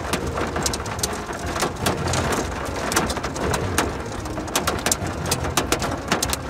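Rain falling in scattered drops, heard as irregular sharp ticks over a low steady rumble.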